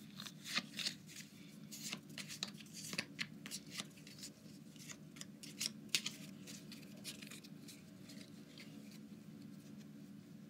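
Pokémon card booster pack being opened and handled: irregular sharp crinkles and clicks of the wrapper and cards, busiest for the first seven seconds or so and then thinning out.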